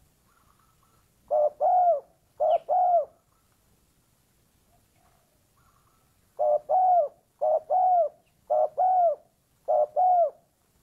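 Spotted dove cooing: six loud two-note coos, each a short note then a longer one. Two come about a second in, then four more after a pause of about three seconds.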